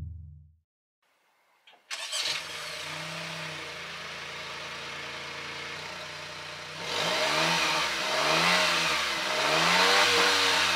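Honda N-BOX Custom's small three-cylinder kei-car engine, heard from the exhaust. It starts up about two seconds in, idles steadily, then is revved three times in quick succession near the end.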